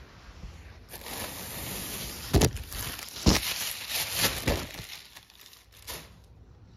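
A thin plastic carrier bag rustling and crinkling close to the microphone as it is handled, with several sharp crackles. It starts about a second in and stops about six seconds in.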